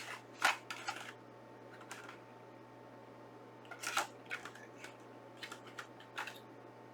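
Irregular small clicks and taps of hard plastic being handled: a pen being fitted back into the plastic case of a collector's edition box. The loudest clicks come about half a second in and about four seconds in.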